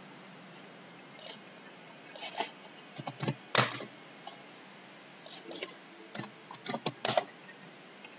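Computer keyboard keys being typed and a mouse clicking in short, irregular clusters over a faint steady hiss.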